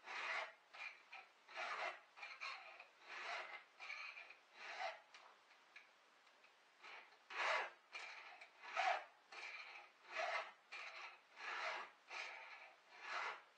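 Hand file sharpening a chainsaw chain clamped in a vise, rasping across the cutters in even strokes about one every three-quarters of a second, with a short pause a little past the middle.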